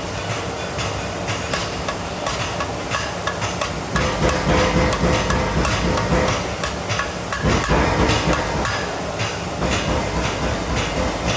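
Repeated hammer strikes on hot metal during forge welding, over a steady low rumble that grows louder about four seconds in.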